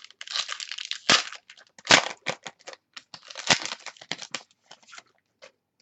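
Trading-card packs being handled: foil wrapper crinkling and tearing and cards snapping and sliding against each other, a quick run of crackles with a few sharper snaps.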